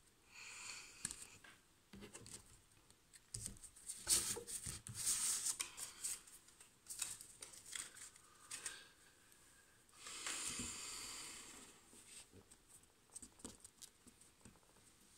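A deck of oracle cards being shuffled by hand: soft papery rustles of cards sliding against each other, mixed with small taps, in a few runs, the longest about ten seconds in.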